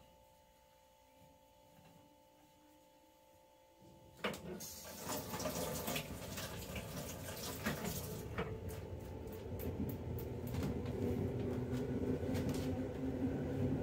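Kitchen tap turned on about four seconds in: water running into a metal sink with splashing as starch-covered hands are rinsed, getting louder toward the end. Before it, only a faint steady hum.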